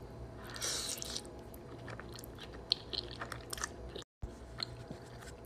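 A person chewing a mouthful of pasta close to the microphone, with small mouth clicks; the sound drops out for a moment about four seconds in.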